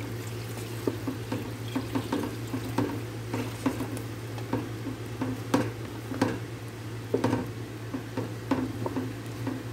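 A wooden spoon stirring thick harees porridge in a pot, with irregular wet scrapes and knocks against the pot, about one a second. A steady low hum runs underneath.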